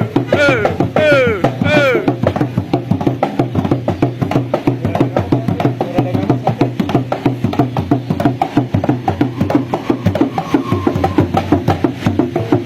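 Music with a fast, clicky wood-block-like percussion beat and a steady bass line. Over the first two seconds, a run of short, repeated rising-and-falling voice-like calls sounds on top of it.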